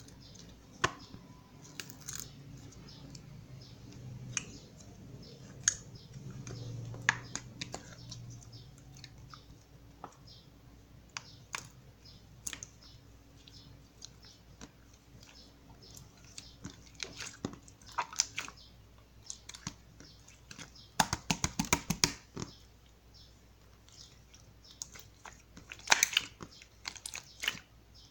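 Iceberg slime being handled: scattered crisp crackles and clicks as its hardened top layer cracks, with a dense flurry of crackling about 21 seconds in and another around 26 seconds in.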